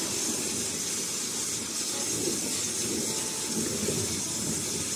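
Mountain stream water rushing and churning steadily into a traditional water-powered rug-washing basin, a 'natural washing machine'.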